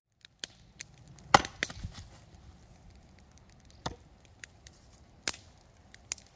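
Axe chopping a firewood log on a stump: one loud, sharp chop about a second in, then two lighter wooden knocks a few seconds later and a few small clicks of wood.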